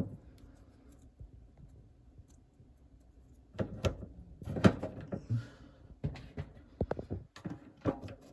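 New plastic agitator dogs being slid into a washing machine's agitator by hand, replacing worn ones. Nearly quiet at first, then from about three and a half seconds in a run of irregular plastic clicks and knocks.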